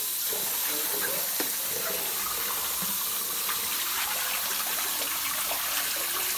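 Tap water running steadily into a plastic bowl of chopped green herbs, with small splashes as the greens are swished and rinsed by hand and water spills over the bowl's rim.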